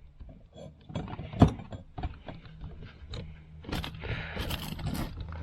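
Handling and work noises: scattered clicks and knocks, with one sharp knock about a second and a half in and a stretch of rustling near the end, over a faint steady low hum.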